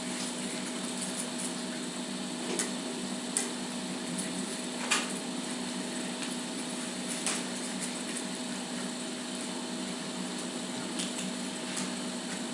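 Steady room hum with a few scattered sharp clicks and taps, about half a dozen, the loudest about five seconds in: spoons and plastic yogurt cups handled during tasting.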